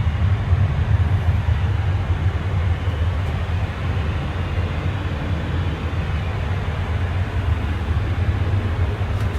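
Airbus A320 airliner's cabin noise: a steady, heavy low rumble with a broad hiss of engines and moving air.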